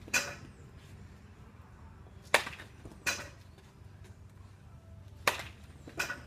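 Two sharp cracks of a wooden baseball bat hitting baseballs, each followed under a second later by a second, weaker knock; another such knock comes right at the start.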